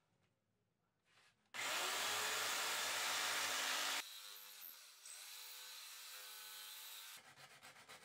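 Jigsaw cutting a curve into a wooden ceiling-fan blade: after a second and a half of near silence, loud steady sawing, which drops suddenly about halfway to a quieter, steady run with a faint tone. Near the end, quick rhythmic strokes of hand sanding on the cut edge begin.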